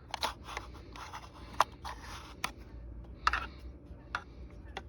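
Plastic casing of a Kidde carbon monoxide alarm and an AA battery being handled and fitted into the battery compartment: scattered clicks and short scrapes, the sharpest click about a second and a half in.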